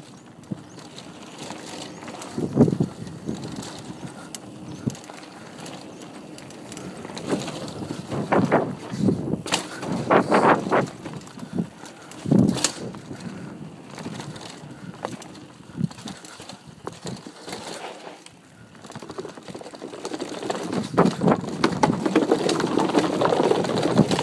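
Bicycle ridden over a rough dirt trail: tyre noise on the ground with irregular knocks and rattles as the bike jolts over bumps, and rushing wind on the microphone building over the last few seconds.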